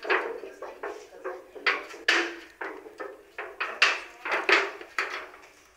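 Banana-peel charcoal being tipped and scraped off an iron sheet into a bucket: a run of irregular scrapes and knocks as the sheet is tapped and brushed clean.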